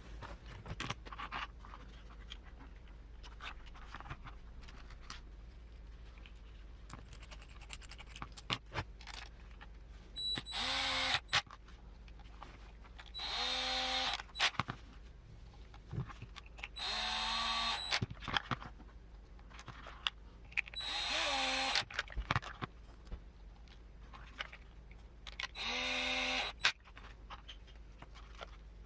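Small electric screwdriver driving small cap head screws into the kit's parts in five short runs of about a second each, its motor slowing as each screw seats. Light clicks and knocks of parts and screws being handled fill the gaps between runs.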